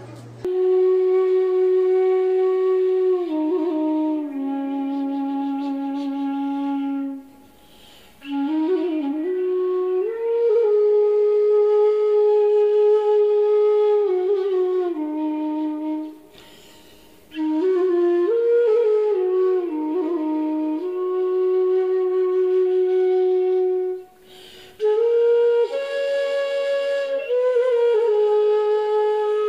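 Flute music: a slow solo melody of long held notes, broken by three short pauses.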